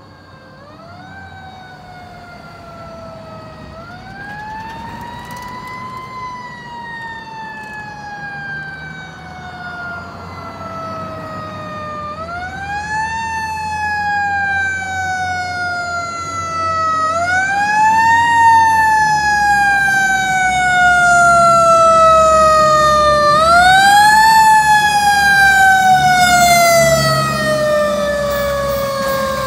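Fire engine siren wailing as the truck approaches and passes: five times its pitch rises quickly, then falls slowly over several seconds. It grows steadily louder, and the truck's engine rumbles underneath in the second half.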